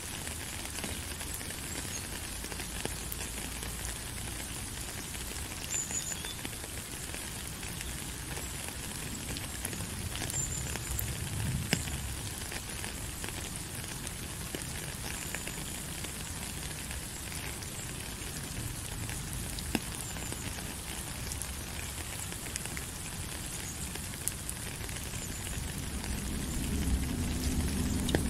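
Steady rain falling: an even hiss dotted with many small drop ticks. A low rumble swells briefly about ten seconds in and builds again near the end.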